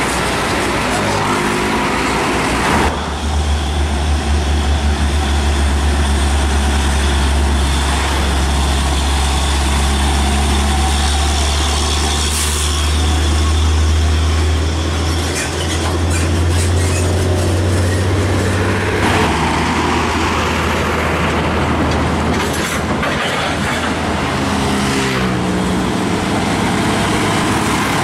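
Heavy diesel trucks passing by on the highway: a deep engine drone sets in about three seconds in, shifts pitch partway through and fades at around twenty seconds, over steady road traffic noise.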